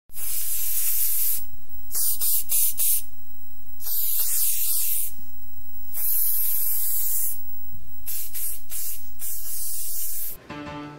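Loud, steady static-like hiss, its tone shifting every second or so, which cuts off suddenly near the end as music starts.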